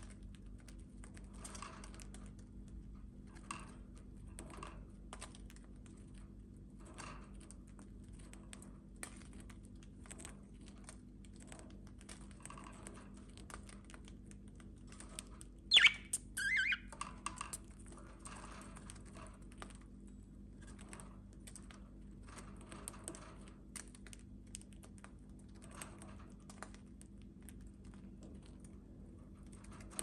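Budgie beaks pecking and scraping at a mineral calcium block, a run of small irregular clicks. About halfway through, a budgie gives two quick falling chirps.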